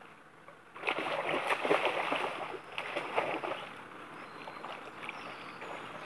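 Dog splashing through shallow river water. A loud churning stretch of splashes starts about a second in and lasts about three seconds, then settles into quieter sloshing.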